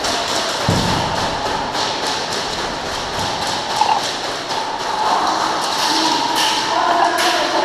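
Airsoft gunfire with BBs striking the surfaces around the player: a fast, irregular run of sharp ticks and taps, with a heavier thump about a second in. Faint distant shouting comes in during the second half.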